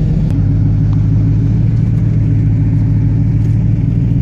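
Car engine running at a steady pitch, a low hum heard from inside the cabin.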